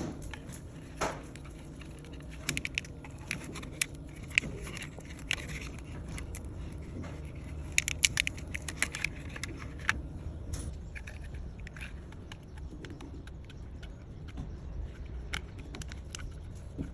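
Irregular small clicks and light taps, like hard objects being handled, over a low steady rumble.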